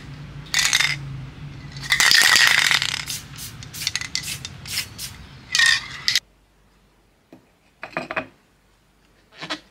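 Aerosol spray-paint can being shaken, the metal mixing ball rattling against the can in quick repeated bursts. The shaking stops abruptly after about six seconds, and a few light knocks follow as the can is handled on a concrete block.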